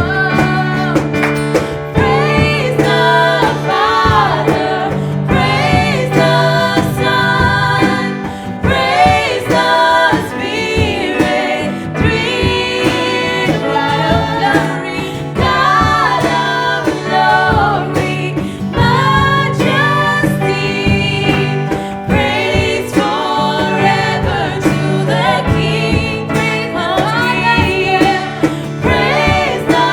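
Worship song: singing over instrumental backing, with steady bass notes and a beat.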